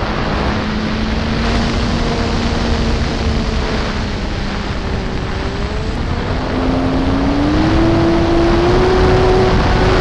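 ParkZone Corsair RC plane's electric motor and propeller whining steadily under a heavy rush of wind on the onboard microphone. The whine rises in pitch about two-thirds of the way through as more throttle is given, then holds at the higher note.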